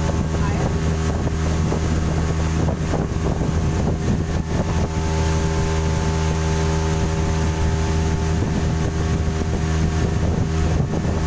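Outboard motor driving a small fibreglass speedboat at a steady cruising speed, its hum holding one pitch throughout, with wind buffeting the microphone.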